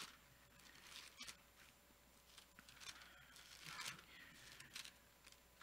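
Near silence with a few faint rustles and flicks of thin Bible pages being turned by hand.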